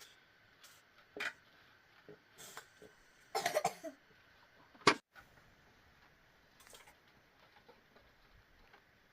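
A person coughing several times in short bursts, with a sharp click about five seconds in.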